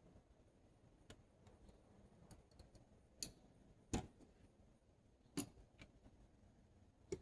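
Four sharp clicks, a second or more apart with the loudest about four seconds in, from small electronic parts being handled while LED leads are trimmed and the LEDs pressed into place.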